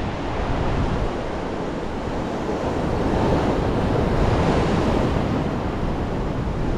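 Heavy sea surf breaking and washing on the shore, with strong wind buffeting the microphone in a steady low rumble.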